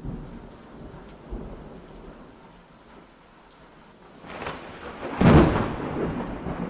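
Wind buffeting a phone microphone over open water, a steady rumbling hiss with a loud gust about five seconds in.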